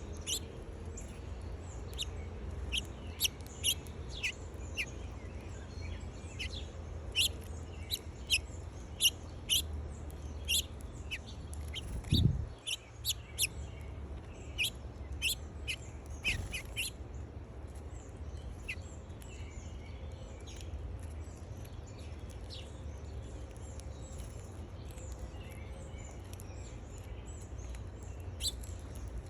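Small wild birds chirping: many short, sharp, high chirps in quick succession, busiest in the first half and thinning out later. A single low thump about twelve seconds in, over a steady low rumble.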